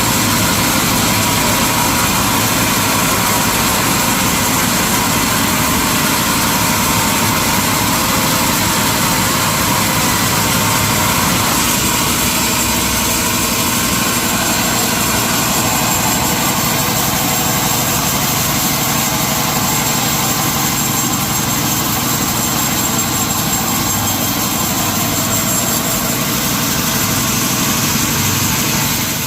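Sawmill machinery running steadily, a loud, even mechanical noise with no breaks.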